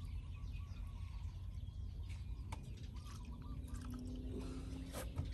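Brine trickling from a steel pot into a plastic tub of eggs, over a steady low rumble of wind on the microphone, with a few faint bird chirps.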